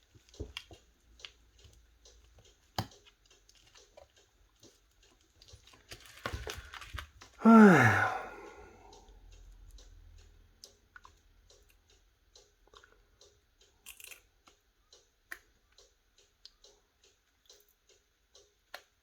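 Faint, scattered clicks and taps of small parts and tools being handled during smartphone reassembly, with a busier patch of clicking about six seconds in. About seven and a half seconds in comes a brief, louder pitched sound that falls in pitch.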